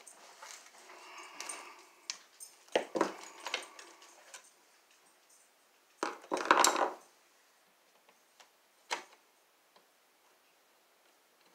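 Knocks, scrapes and clatters of hand tools being handled while working at a wall outlet, the loudest a clattering burst about six seconds in, then a single click about nine seconds in.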